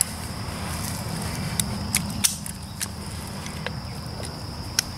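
Handling and fastening a load-bearing vest: about half a dozen sharp clicks and rattles of buckles and clipped-on gear, spread unevenly over a few seconds.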